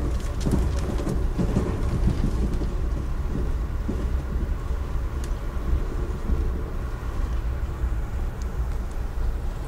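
Steady low rumble of an Amtrak passenger train running, heard from inside the coach, with a few sharp clicks and rattles in the first second and one more about five seconds in.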